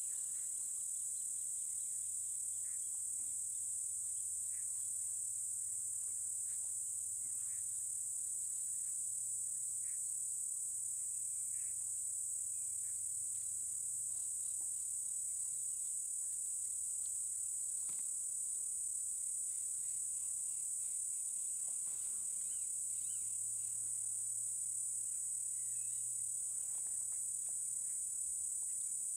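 A steady, high-pitched chorus of insects drones without a break, with faint scattered clicks and snaps beneath it.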